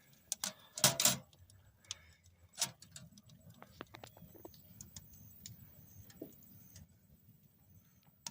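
Freshly lit wood fire crackling and popping inside a stainless steel tent wood stove, a run of small irregular ticks and snaps over a faint low rumble, with louder metallic clicks about a second in.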